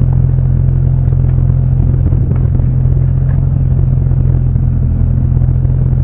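Car engine idling steadily, heard from inside the cabin, with no revving.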